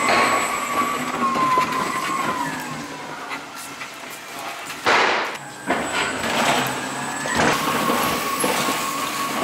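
Linde L12 electric pallet stacker running, its motor giving a steady high whine that wavers slightly in pitch. There is a loud rattling clatter about five seconds in and a shorter one just after.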